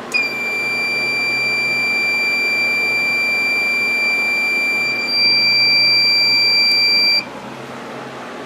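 Electronic alarm buzzer of a fire alarm test setup, sounding one continuous high-pitched tone as the system goes into alarm. It grows louder about five seconds in and cuts off abruptly after about seven seconds.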